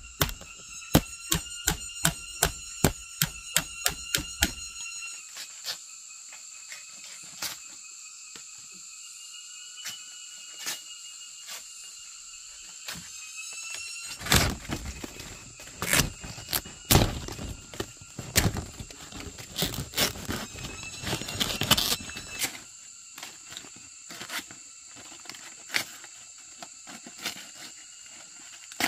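Wooden knocking during shelter work: a steady run of sharp blows, about two or three a second, for the first five seconds, then scattered knocks and a busier stretch of knocking and cracking in the middle. Insects chirr steadily underneath.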